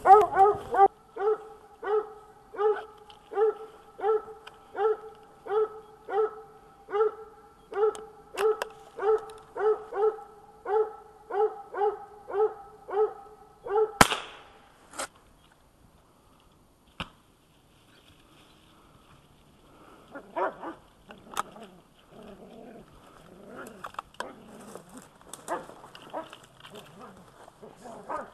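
A coonhound barking treed: a steady run of chop barks about two a second. About halfway through, a single rifle shot cracks out and the barking stops; after a lull, scattered lighter barks and yips come in near the end.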